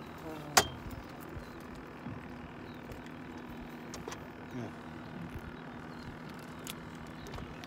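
Sharp clicks and light knocks of fishing tackle being handled while a crappie is unhooked, the loudest click about half a second in. A steady low hum runs underneath.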